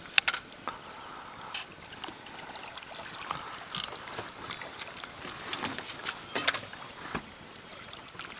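Water lapping around a small fishing boat, with a few sharp clicks and knocks as a fish is played on rod and reel.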